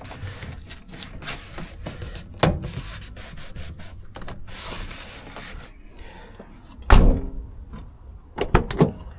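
Hands working on a van door: rubbing and scraping with scattered clicks, a sharp knock about two and a half seconds in, a heavy thump about seven seconds in and a few more knocks near the end.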